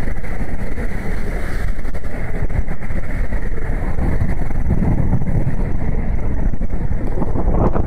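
Wind buffeting the microphone over lake waves breaking and splashing against shore rocks, a loud steady rush with a swell of rumble about halfway through.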